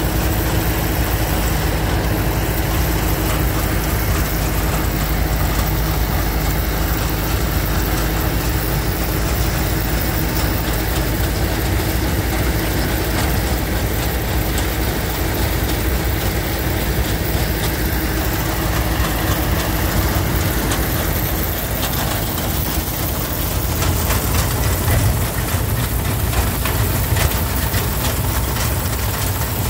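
An engine running steadily with a low hum; in the last several seconds the low rumble becomes louder and rougher.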